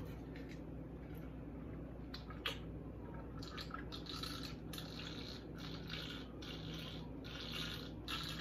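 A person gulping a drink from an insulated water bottle. After a few faint clicks, a steady run of swallows begins about three seconds in, roughly two or three a second.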